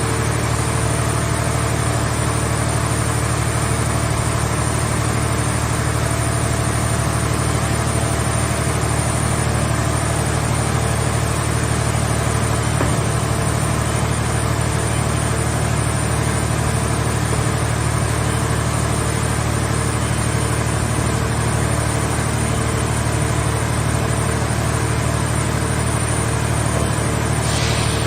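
Scrap car shell baler's power unit running steadily with a constant low hum, with no change in load.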